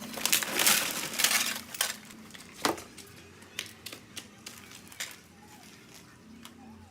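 Hard objects being handled: rustling and crunching for about two seconds, then a sharp click and a few lighter clicks and clinks.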